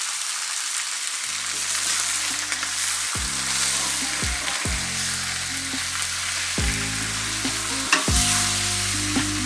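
Onions and garlic frying in oil in a pot, a steady sizzle, stirred now and then with a few light clicks. Background music with a bass line comes in about a second in.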